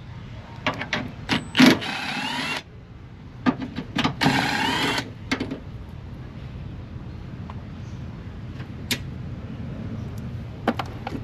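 Small cordless impact tool whirring in two short bursts, about two seconds in and again about four seconds in, backing out 10 mm bolts, with a wavering whine over the motor noise. Scattered clicks and taps of the tool and bolts come between and after.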